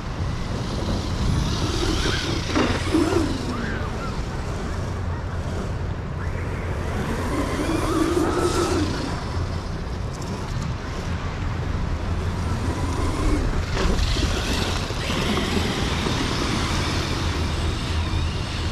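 Upgraded 3S Granite RC truck's brushless motor whining up and down in pitch three times as it speeds up and slows on the sand, over a steady rumble of wind on the microphone.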